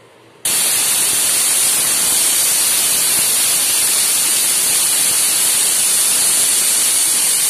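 Stovetop pressure cooker whistling: steam hisses out past the weighted vent valve in one loud, steady rush. It starts sharply about half a second in and stops just as sharply near the end. This is the cooker at full pressure, venting one of the whistles counted to time the cooking.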